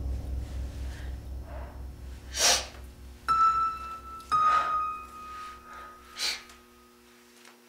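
Film score sound design: a low, rapidly pulsing drone that fades away, with two sustained high ringing notes struck about a second apart. Over it, a woman breathes in sharply three times.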